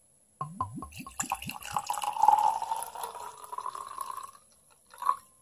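Rosé wine poured from a bottle into a stemmed glass: a few glugs from the bottle neck, then a steady splashing pour that stops about four seconds in, followed by one short sound near the end.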